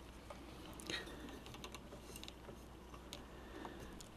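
Faint scattered clicks and light taps from hands handling a vintage Victor TR-403 portable reel-to-reel tape recorder, the most distinct click about a second in, over a low room hiss.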